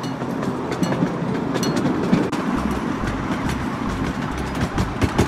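Miniature ride-on railway carriage rolling along the track: a steady rumble from the wheels on the rails, with irregular clicks and clacks throughout.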